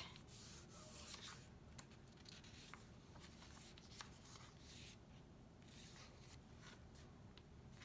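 Near silence with faint rustling and light clicks of paper as the pages of a handmade journal are turned and handled, with one slightly sharper tick about four seconds in.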